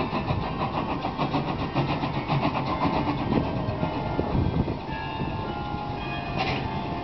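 Small steam tram locomotive (No. 16 'Medemblik') moving slowly, with a rhythmic chuffing and steam hissing from its cylinders. It eases off about five seconds in, and a short hiss of steam comes near the end.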